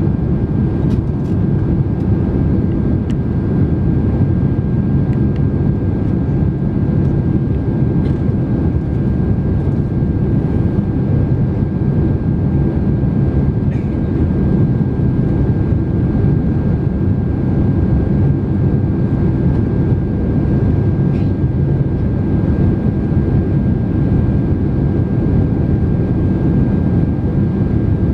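Cabin noise inside a Boeing 767-300 airliner on approach with its flaps extended: a steady rumble of engines and rushing air, with a thin steady whine above it.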